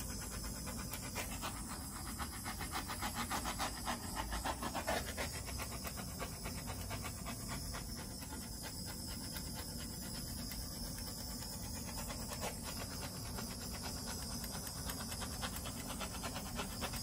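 Handheld gas torch flame hissing steadily with a fast flutter, a little louder a few seconds in, as it is passed over wet acrylic paint to pop the air bubbles in it.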